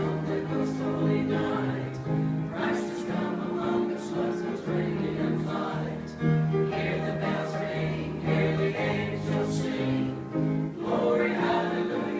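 Church choir singing, holding long notes with new phrases coming in every couple of seconds.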